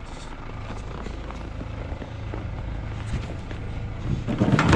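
Footsteps in snow over a steady low rumble, then, near the end, a loud clatter of knocks as the Ford Transit van's rear door is opened.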